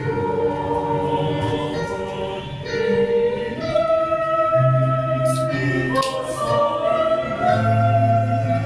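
Choral music: a choir singing slow, long-held notes over a low sustained bass.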